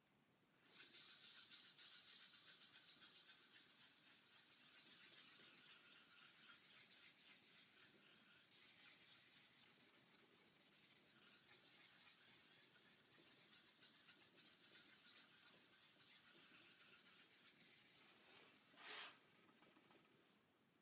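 Wet sandpaper rubbing back and forth over a Crystalac Brite-Tone waterborne lacquer finish on a guitar body: a quiet, uneven hiss that starts about a second in and stops just before the end, with one brief louder scrape near the end.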